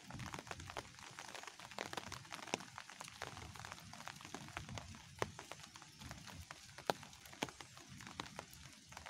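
Light rain: sharp, uneven ticks of close raindrops, several a second, over a faint hiss of rain.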